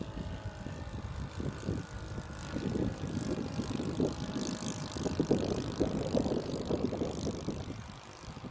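Radio-controlled model Tiger Moth biplane flying overhead, its engine and propeller droning steadily, over a gusty low rumble on the microphone. The drone dips a little near the end.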